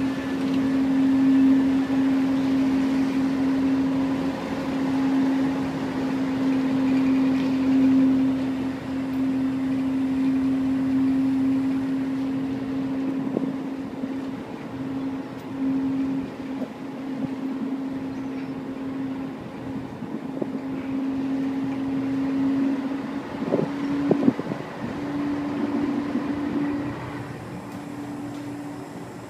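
Tugboat's engine running, a steady drone with one held hum. A few short knocks come about two-thirds of the way through.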